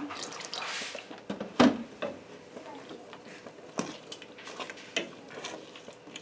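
Wooden spoon stirring a thick cheese sauce in a stainless steel pot: wet squishing, with several sharp knocks of the spoon against the pot, the loudest about one and a half seconds in.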